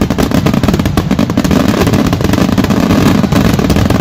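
Fireworks going off in a dense barrage: a continuous crackle of rapid pops and bangs from spark fountains and bursting shells.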